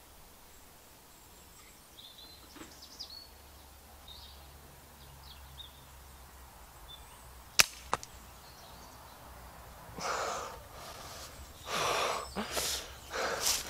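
A single air rifle shot about seven and a half seconds in: one sharp crack, with a fainter click just after it. Faint small-bird chirps come before the shot, and bursts of rustling follow about two seconds after it.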